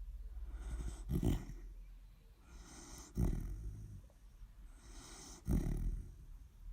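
A sleeping dog snoring: a low, rattling snore on each breath, about every two seconds, with three loud peaks and an airy hiss of breath leading into them.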